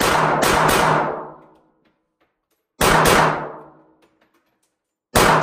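Glock 48 9mm pistol firing about six shots in three quick strings: three in a row at the start, two about three seconds in, then one near the end, each with a long ringing tail.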